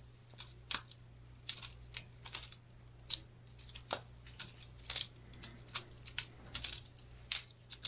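Boker Plus balisong (butterfly knife) being flipped by hand, its metal handles and blade clicking and clacking together in an irregular run of sharp clicks, about three a second and some in quick pairs.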